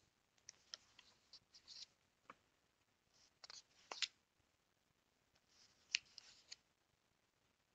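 Near silence with faint, irregular small clicks and brief rustles spread through it, loudest about six seconds in.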